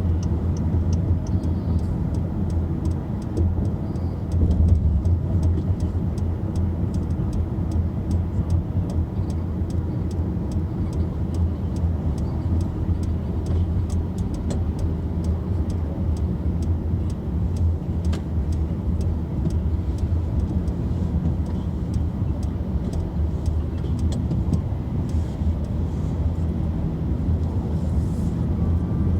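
Car running with a steady low rumble and many small, irregular rattling clicks over it.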